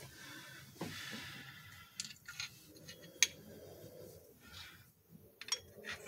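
A few light metallic clicks and clinks of small steel parts being handled: rocker arms, their pivots and bolts set onto the engine's valvetrain, with faint rubbing in between. The sharpest click comes about three seconds in.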